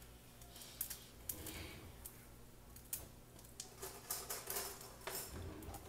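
A sandwich toasting in hot vegetable oil in a frying pan, the oil crackling and popping irregularly, with a few pops close together about four seconds in, over a low steady hum.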